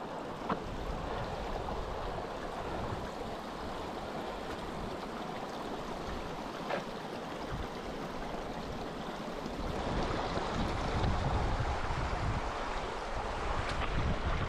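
Mountain stream (gill) rushing over rocks, steady throughout, with a few brief knocks. About ten seconds in, a low rumble of wind buffeting the microphone grows louder.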